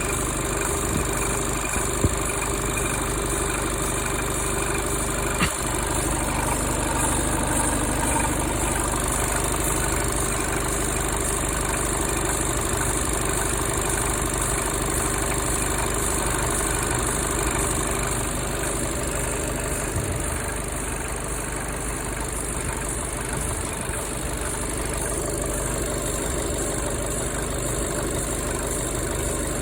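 2018 Volkswagen Polo 1.6 TDI four-cylinder turbodiesel engine idling steadily, with a weird noise from the left side of the engine. Two short knocks stand out about two and five and a half seconds in.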